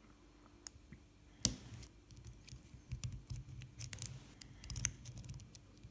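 Metal lock picks working in the keyway of a BKS six-pin padlock: a sharp click about a second and a half in as the tools go in, then a run of small, irregular clicks and scrapes of the pick against the pins.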